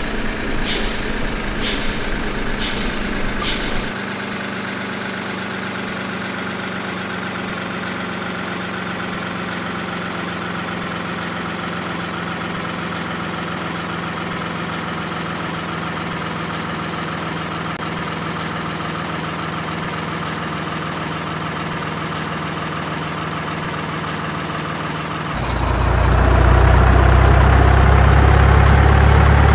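Steady engine-like drone holding one pitch, with a run of sharp clicks about every 0.6 s over the first four seconds. About 25 seconds in the drone grows louder and heavier.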